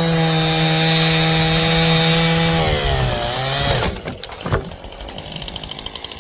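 Stihl two-stroke chainsaw running at full throttle with a steady high note, which wavers and drops about three seconds in and falls back to a low idle about four seconds in.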